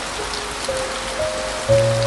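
Steady heavy rain pattering, with soft piano notes held over it; a louder low piano chord comes in near the end.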